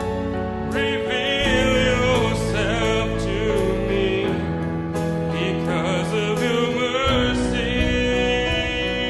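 Worship band playing a slow song: held chords under regular drum hits, with a voice singing two long phrases.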